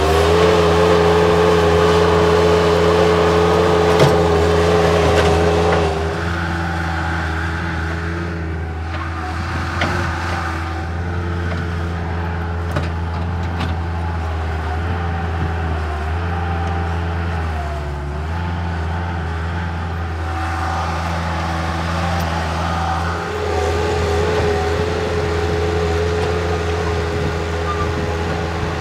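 Bobcat 763 skid-steer loader's engine running under load as it digs, a steady drone whose pitch dips and recovers now and then as the load changes. It drops a little quieter about six seconds in and comes back up near the end.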